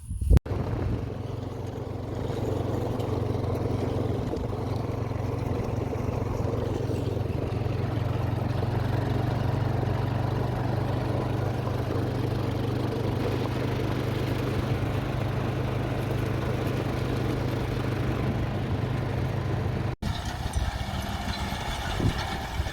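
An engine running steadily at a constant speed, with an even low hum and no change in pitch. The sound stops abruptly about a second in from the end.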